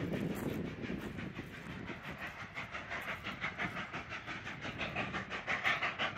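Narrow-gauge passenger cars of the Cumbres and Toltec steam train rolling away over the rails: an even run of wheel clicks over the rail joints, a few per second, above a rumbling wash of wheel noise.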